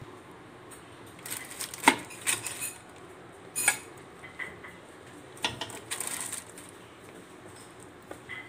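Chicken pieces being set down one at a time in a metal pan lined with butter paper: several knocks and clinks against the pan, with the paper crinkling.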